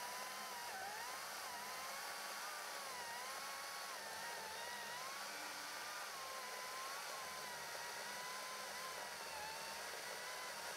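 Stihl MSA 220 C cordless electric chainsaw cutting through a honey locust log, its motor whine rising and falling slightly in pitch as the chain meets varying load. It is fairly faint.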